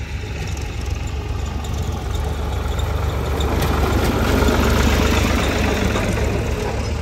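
Diesel tractor engine running, getting louder about three seconds in and easing off slightly near the end.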